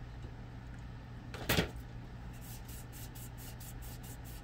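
A single short knock about one and a half seconds in, over a steady low hum.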